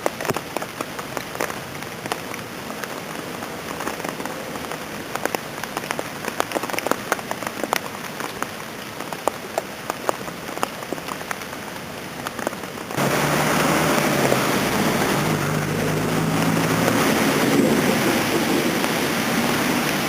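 Rain falling, with many irregular sharp drips and drops ticking onto a hard surface. About two-thirds of the way through it cuts suddenly to a louder, steady rushing noise.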